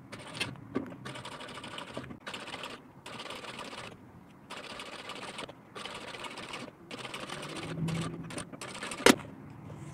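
Industrial straight-stitch sewing machine running in about six short runs, stopping and starting as it topstitches a seam through faux leather and fabric. A sharp click about nine seconds in is the loudest sound.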